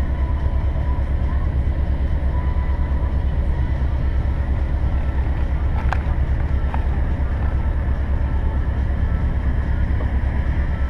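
Heavy diesel truck engine idling with a steady, low, fast throb; a couple of light clicks about six seconds in.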